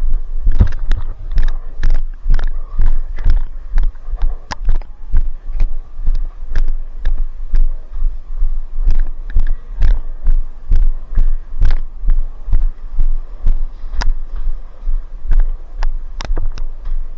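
Footsteps and gear jostling a body-worn camera: steady low thumps about twice a second, with light clicks and rattles.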